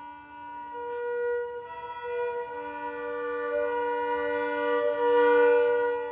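Violin and double bass duo playing long held bowed notes in just intonation, mostly two pitches sounding together. The notes change every couple of seconds, and the sound swells to its loudest near the end.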